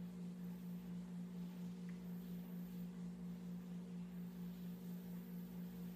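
Steady low electrical hum: one unchanging tone with fainter overtones above it.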